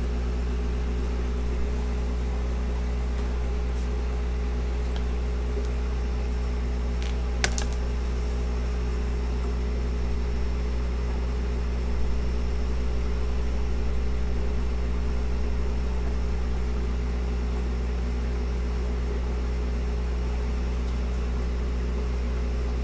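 Steady low mechanical hum of running aquarium equipment, with a single sharp click about seven seconds in.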